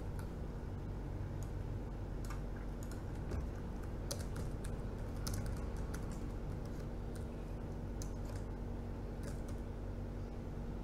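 Computer keyboard keys clicking in irregular runs as text is typed, over a steady low hum.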